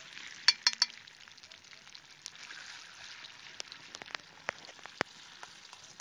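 A spoon stirring crushed tomatoes in a small metal pot on campfire embers: three quick loud clinks about half a second in, then scattered ticks over a soft steady sizzle.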